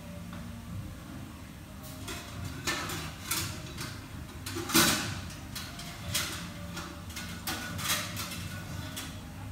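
Kitchen work noises: a string of irregular clatters and knocks, the loudest a little before halfway, over a steady low hum.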